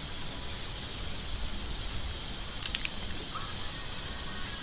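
Steady, high-pitched insect chorus, a continuous buzz with a faint low rumble beneath it and a couple of small clicks a little past halfway.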